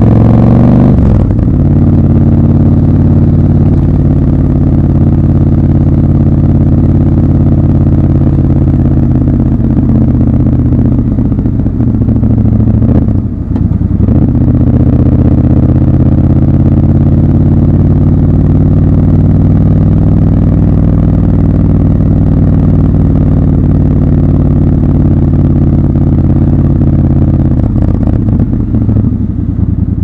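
Triumph Scrambler 1200 XC's 1200 cc parallel-twin engine running under the rider at low city speed. The revs climb and drop about a second in, then the engine holds a steady pitch, with a brief dip in loudness about halfway through.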